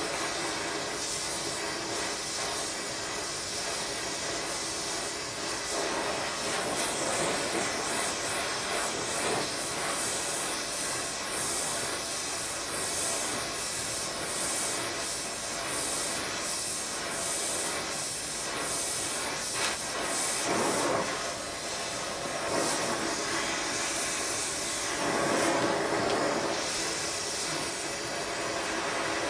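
Gas torch flame hissing steadily as it plays on a steel crank web, heating it to expand it for a shrink fit, swelling louder a couple of times.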